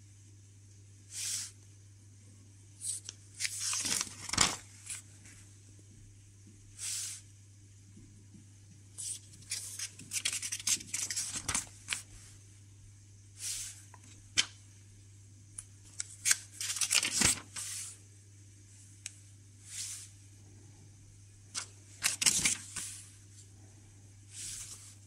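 Pages of a thin paper instruction booklet being handled and turned: short, irregular papery rustles and swishes with quiet gaps between them, over a faint steady low hum.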